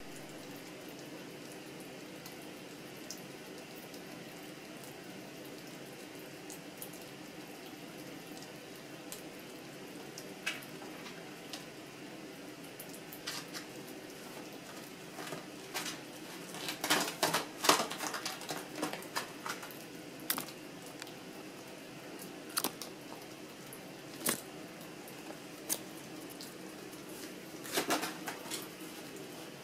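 Young fox squirrel gnawing and cracking a nut: sharp crunches and clicks of the shell, sparse at first and then coming in quick clusters in the second half, over a steady room hum.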